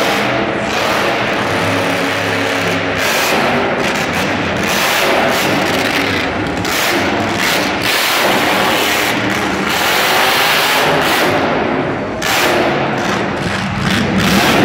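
Higher Education school-bus monster truck's engine running loud, its pitch rising and falling as it drives around the arena floor, with a brief easing about twelve seconds in.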